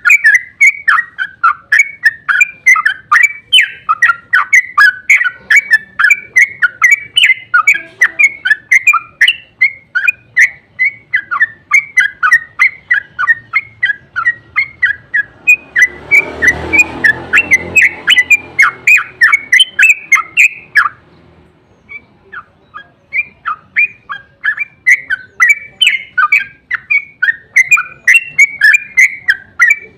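Yellow-vented bulbul (trucukan) singing a long rapid run of short, sharp chirping notes, about three or four a second, breaking off briefly a little after two-thirds through before starting again. About halfway through, a low rumbling noise rises under the song for a few seconds.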